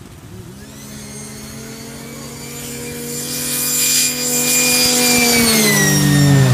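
Ski-Doo snowmobile engine at full throttle on a drag run, growing louder as it comes down the track, then its high steady pitch drops away in the last second as it passes by.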